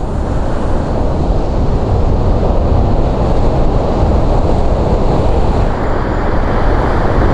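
Hurricane eyewall wind blowing hard in a loud, steady rush, with a deep rumble where it buffets the microphone.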